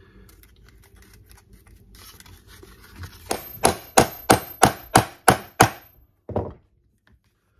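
A hammer strikes a metal rivet setter about eight times in quick succession, roughly three blows a second, setting a copper rivet through a folded leather belt loop. Each blow rings with a high metallic note, and one more blow follows near the end. Faint handling of the leather comes before the blows.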